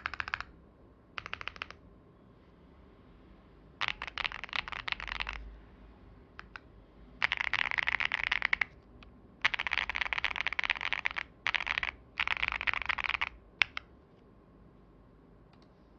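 Mechanical keyboard with stock TTC Holy Panda tactile switches on a carbon-fibre plate in a Tofu65 v2 case, with GMK Lotus clone keycaps, typed in quick bursts of rapid keystrokes a second or so long, with short pauses between and a few lone key presses near the end. The builder calls the sound creamy and poppy.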